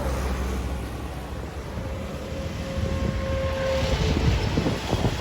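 Low rumble of passing road traffic, with wind buffeting the microphone. A faint steady tone holds for about two seconds midway.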